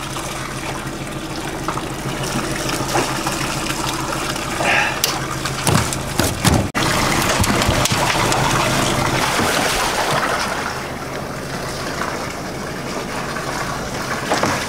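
Water rushing and splashing around a boat's stern, over a steady low motor hum. A few sharp knocks come about six seconds in.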